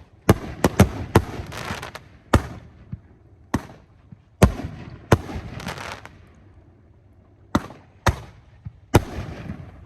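Firework cake firing shot by shot: about a dozen sharp bangs at uneven spacing, some trailed by a crackle. There is a lull of about a second and a half past the middle before the shots resume.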